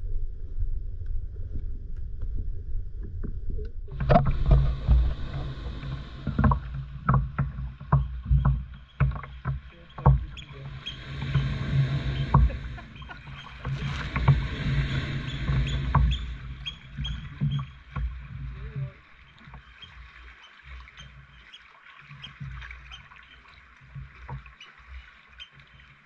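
Muffled underwater rumble for the first few seconds. About four seconds in it opens up abruptly into splashing, dripping paddle strokes and water lapping against a kayak's hull, with many short splashes. The sound grows quieter and sparser toward the end.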